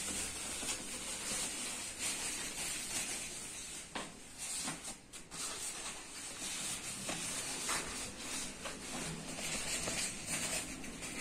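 Foam packing sheet and bubble wrap rustling and crinkling as they are pulled off new motorcycle body parts by hand, with a couple of short pauses partway through.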